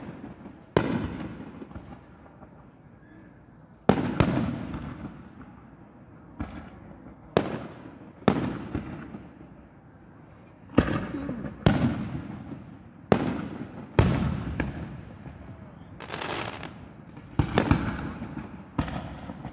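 Aerial fireworks shells bursting overhead: about a dozen booms at uneven intervals, one every one to two seconds, each trailing off over a second or more.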